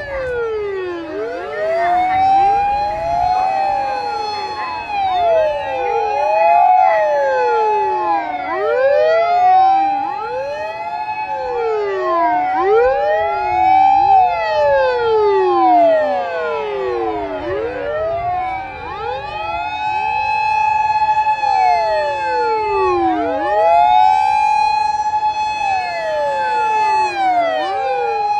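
Several Japanese fire engines' sirens sounding together in a convoy. Their long wails overlap out of step: each rises, holds a high note for a few seconds, then falls, with a low engine rumble beneath.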